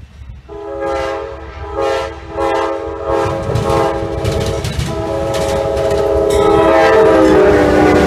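Amtrak diesel locomotive's multi-tone air horn played in a horn show: several blasts of uneven length with short breaks. The last long blast drops in pitch as the locomotive passes close by. Under it, the rumble of the approaching train's engines and wheels grows louder.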